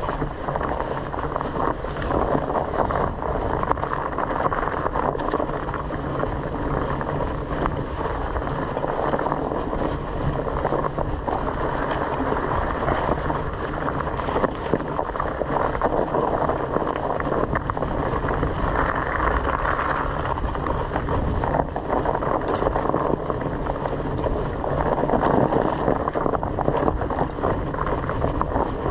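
Steady ride noise from a bicycle on a rough dirt trail: wind rushing over the action camera's microphone, with tyre rumble and small knocks and rattles from the bike.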